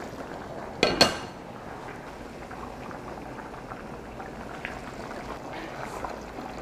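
A pot on the stove bubbling at a steady boil, with two quick clinks of its lid about a second in.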